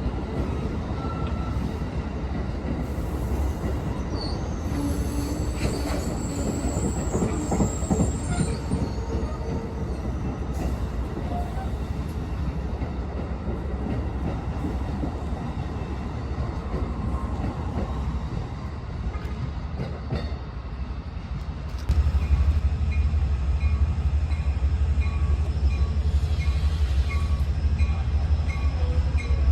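Train running on the rails, with high wheel squeal from about four to nine seconds in. About 22 seconds in the rumble gets louder and a high tone starts repeating about twice a second.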